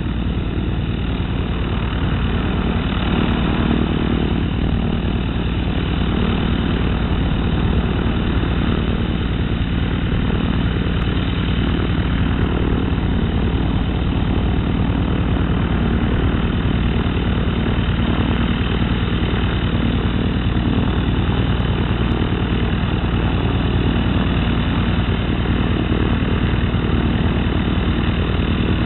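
Cessna 208 Caravan's PT6A turboprop engine running steadily, a high turbine whine over a low propeller drone, growing a little louder over the first few seconds.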